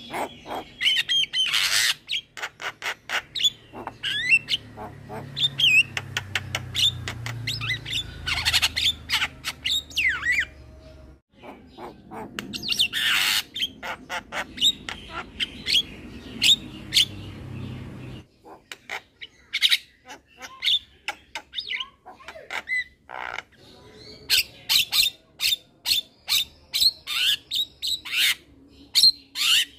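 Young male Javan myna singing: rapid runs of harsh clicks and squawks mixed with short whistled notes, in bursts with brief pauses.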